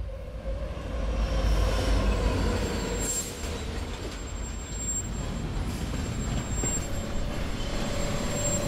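Continuous heavy mechanical rumble and rattle that builds over the first second or two, with a faint steady high whine above it.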